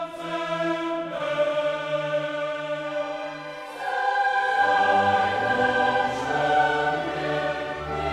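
Choral music: a choir singing slow, held chords that change about a second in and again around four seconds in, where it grows louder.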